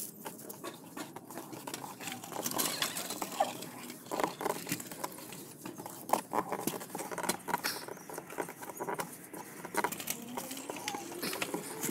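A hand pressing and rubbing over an adhesive-backed faux-leather kick guard on a car's plastic door panel, making an irregular run of small scratches, taps and rustles.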